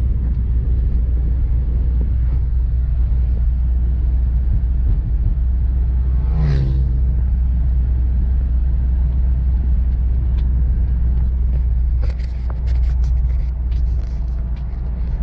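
Steady loud low rumble of a car's road and engine noise heard from inside the moving car. A brief higher pitched sound rises out of it about six seconds in.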